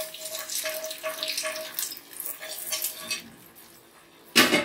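Hot tadka of oil, mustard seeds, dal and curry leaves poured onto soaked semolina, sizzling and crackling and fading away over about three seconds. A short loud burst of noise comes near the end.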